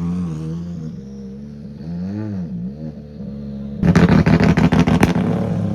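Rally car engine at the start, blipped twice with the revs dipping and rising. About four seconds in it launches hard with a rapid run of sharp cracks, then holds a steady high-revving note.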